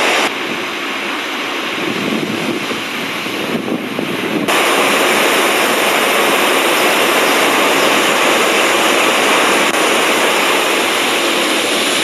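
Steady roar of huge volumes of water plunging over Iguazu Falls. It drops slightly softer about a third of a second in and comes back louder at about four and a half seconds.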